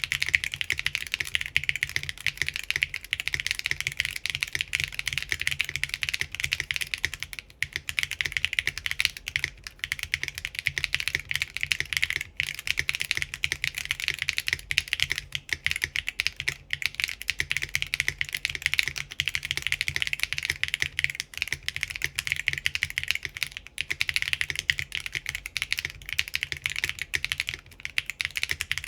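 Steady fast typing on a plate-gasket-mounted Typface Kafka mechanical keyboard with Geon RAW HE Hall-effect switches, an aluminium plate and ABS doubleshot keycaps. It gives a dense run of crisp keystroke clicks with a low thock under them, and only a few short pauses.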